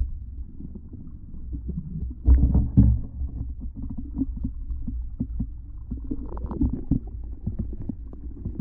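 Muffled underwater sound picked up by a submerged GoPro: low rumbling with scattered knocks and clicks, and a louder thump about two seconds in.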